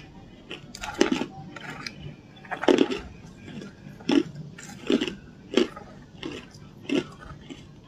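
Hard ice being bitten and chewed, a string of loud, sharp crunches about once a second.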